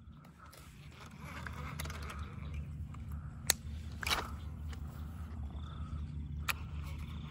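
Light scraping and handling noises with three sharp clicks, the first two close together about halfway through and the last near the end, over a low steady hum.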